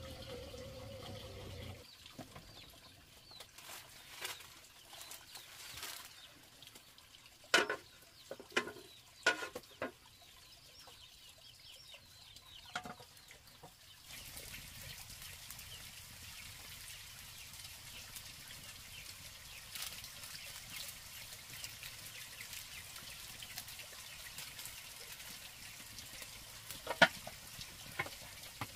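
Chickens clucking now and then, with a few sharp short knocks, loudest a third of the way in. About halfway through, a steady high hiss sets in, with two sharp clicks near the end.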